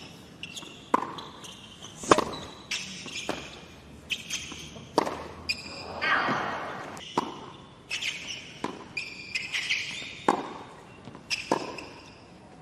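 Tennis rally on a hard court: racket strikes on the ball and ball bounces, about one sharp hit every second or so, with short high-pitched squeaks after several of the hits.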